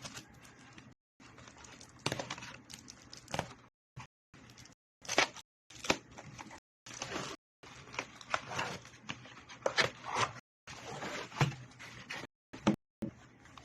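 Packaging being handled and opened: irregular rustling, crinkling and tearing in short bursts, with a few sharper clicks, broken by moments of dead silence.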